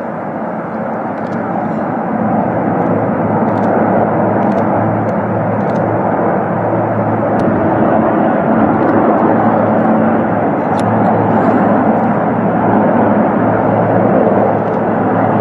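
Marine One, a Sikorsky VH-3D Sea King helicopter, lifting off and flying past: a steady rotor and turbine drone over a low hum, growing louder over the first few seconds and then holding.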